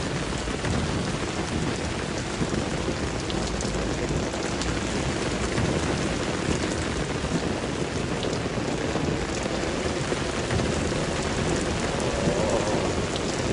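Heavy rain pouring down steadily, a dense, even hiss of rain falling on stone steps and foliage.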